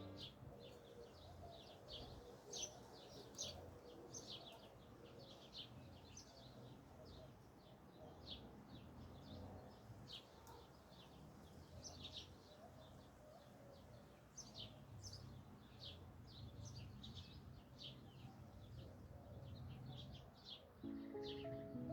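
Many short, high bird chirps at an irregular pace from several small birds, faint and continuous, over a low background hum.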